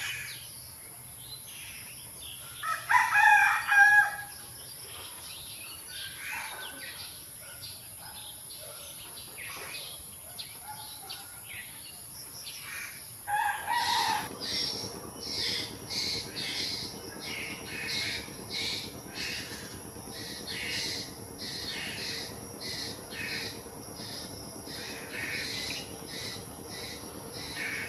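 A rooster crows once, loudly, a few seconds in, over scattered background birdsong. About halfway through, a steady low hum starts, and short bird chirps repeat roughly once a second.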